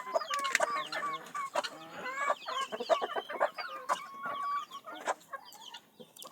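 Flock of chickens clucking and squawking in many short overlapping calls, with scattered sharp knocks, while the birds fight among themselves.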